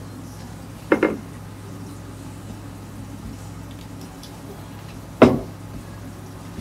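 Hard knocks of things being set down on a counter: a quick double knock about a second in and a single louder one near the end, over a steady low hum.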